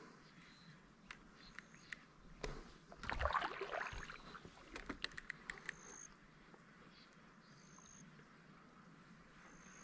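Faint knocks and clicks of gear being handled in a kayak, with a brief splash of water about three seconds in.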